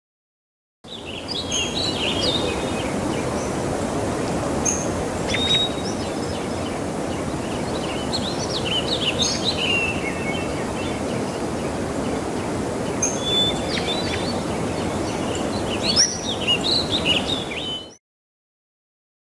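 Outdoor nature ambience: several birds chirping and calling over a steady rushing background noise. It starts suddenly about a second in and cuts off suddenly near the end.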